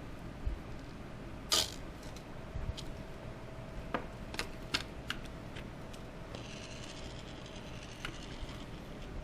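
Small clicks and taps from handling a soldering iron, solder and a circuit board while soldering component pins, scattered irregularly with the sharpest about a second and a half in, and a soft hiss for about two seconds near the end.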